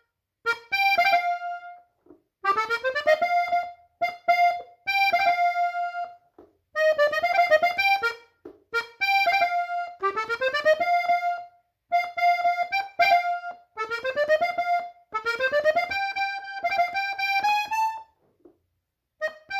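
Hohner three-row diatonic button accordion tuned in F playing the melody of a norteño song in B-flat in short phrases, with quick rising runs into held notes and brief pauses between phrases.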